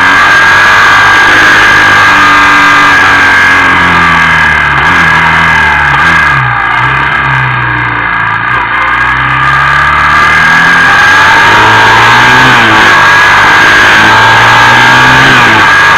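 Motorcycle engine under way with heavy wind rush on the microphone. The revs drop from about four seconds in, ease off through a quieter stretch, and then climb again as the bike accelerates.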